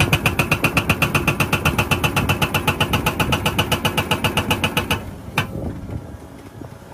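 Hydraulic rock breaker on a Cat excavator hammering rock in a fast, even run of blows, about ten a second. The hammering stops about five seconds in, followed by a single knock.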